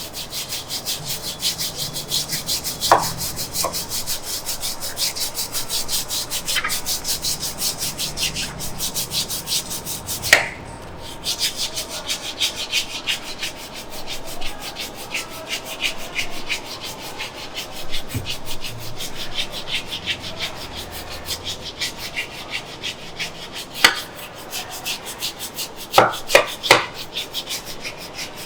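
Hands rubbing briskly over skin or cloth in fast, even massage strokes, several a second. A few sharp clicks or taps come through, three of them close together near the end.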